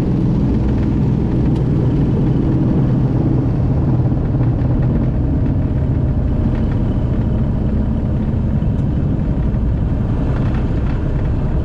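Aquila A210's Rotax 912 four-cylinder aircraft engine running steadily, a low, even drone.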